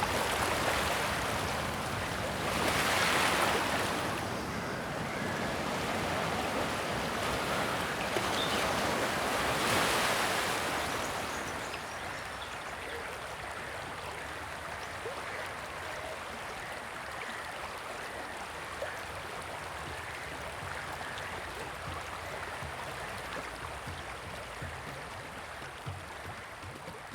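Sea waves washing onto a shore: two surges of surf a few seconds apart, then a steadier, quieter wash.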